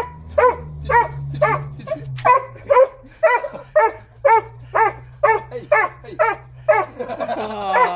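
Samoyed–Golden Retriever cross dog barking in an unbroken run of short, high barks, about two a second, excited at greeting a returning family member.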